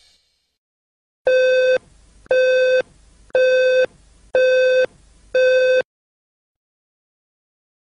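Five evenly spaced electronic beeps of one steady pitch, each about half a second long, about one a second, in the on-off pattern of a telephone busy signal.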